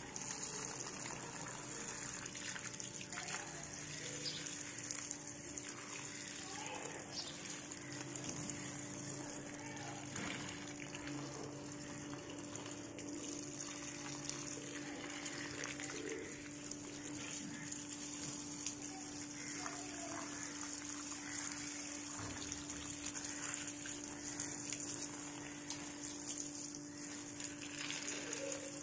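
Water from a garden hose pouring steadily onto potted plants and wet soil, splashing in the pots, over a faint steady low hum.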